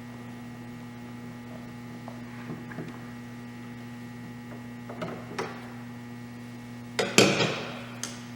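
Steady electrical mains hum, with a few light clicks and, about seven seconds in, a brief louder scrape as the plastic oil-access side panel of a portable inverter generator is worked loose and removed by hand.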